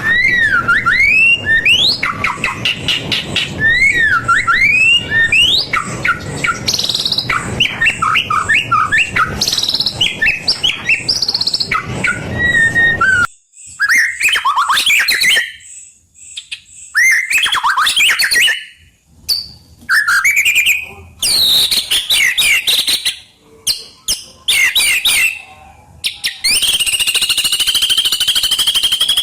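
White-rumped shama (murai batu) singing a varied song of loud whistled phrases and quick sweeping notes. In the second half the phrases are broken by short pauses, and a long, steady high trill begins near the end.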